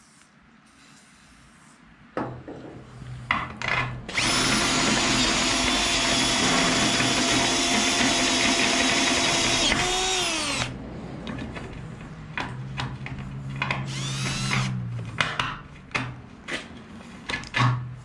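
Cordless drill running a step bit through the steel frame rail of a flatbed, enlarging a hole toward 3/4 inch. A loud, steady whine of the bit cutting steel lasts about six seconds and winds down in pitch as the trigger is let go. Shorter, quieter runs of drilling with clicks follow.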